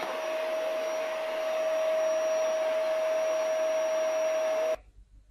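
Steady whir of an electric appliance motor, a rush of air with one constant whine, cutting off suddenly near the end.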